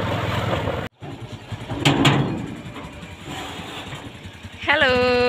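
Motorbike engine and road noise while riding, cut off abruptly about a second in. Then a steel gate clanks twice, and near the end a single long tone, steady in pitch, is held for about a second.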